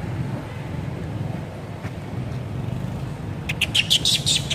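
A quick run of short, high-pitched squeals from a baby long-tailed macaque, about eight in a second, starting about three and a half seconds in, over a steady low background rumble.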